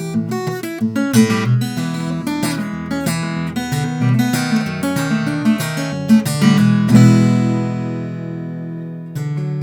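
Martin 00 custom small-bodied 12-fret acoustic guitar being played solo: a quick run of notes and chords, then a loud chord about seven seconds in left to ring and fade before playing starts again near the end.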